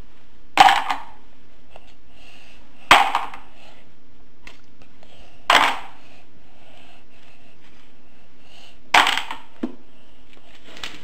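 Four sharp clacks of hard plastic toy parts knocking together, a few seconds apart, with a few faint clicks between them.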